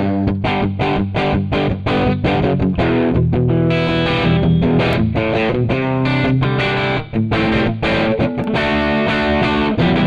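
Donner Hush X electric guitar played through a Mooer Prime P2 on a JTM45 amp model with an overdrive boost: distorted lead lines of many picked notes in quick succession.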